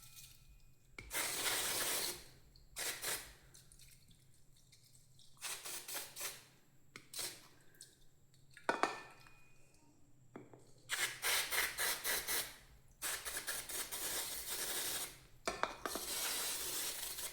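Aerosol can of brake cleaner sprayed in a series of hissing bursts onto a motorcycle's rear brake caliper and pistons, some short and some lasting a second or two, to wash out brake dust and carbon.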